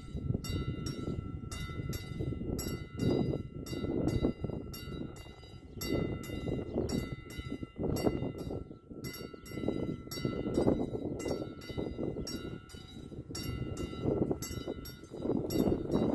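Level-crossing warning bell of an AŽD 71 crossing ringing in even strokes about twice a second, signalling that the crossing is activated for an approaching train. Wind rumbles unevenly on the microphone underneath.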